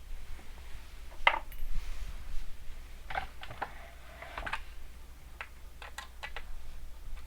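Small irregular clicks and light metallic clinks from a small screwdriver and tiny screws being worked on a laptop's screen mounts; the clearest clinks come about a second in and again between three and four and a half seconds in.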